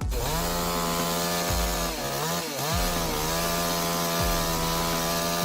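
Chainsaw running at high speed, as when cutting wood. Its pitch holds level, then sags and recovers a couple of times, most clearly between two and three seconds in.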